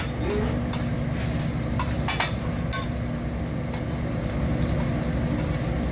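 Fried rice sizzling on a hibachi griddle, with short metal clicks and scrapes of the cooking spatula on the steel plate, over a steady low rumble.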